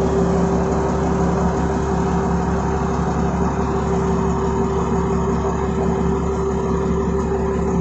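Isuzu 6BG1 six-cylinder diesel of a Dalian CPCD60FA forklift idling steadily.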